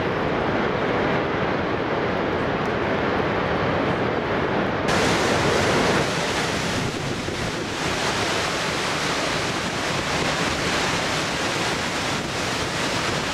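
Steady, loud rush of water from Niagara Falls' Horseshoe Falls and the churning rapids below it. About five seconds in it suddenly turns hissier and brighter.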